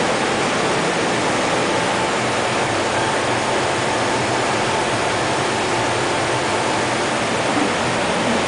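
Vacuum frying machine running: a steady, even rushing noise with a faint hum beneath it.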